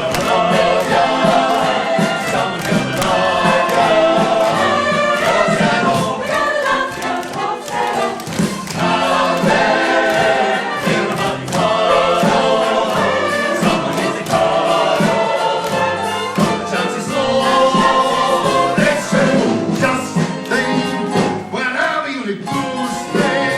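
A group of voices singing together over an instrumental accompaniment, a lively stage-musical number that carries on without a break.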